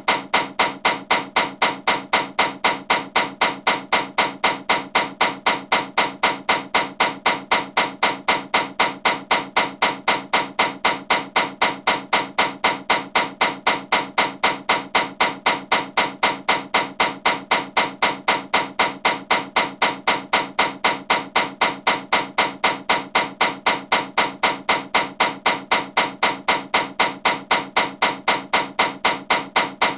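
Ceiling fan running with a loud, regular knocking, a sharp clack about three times a second at an unchanging pace.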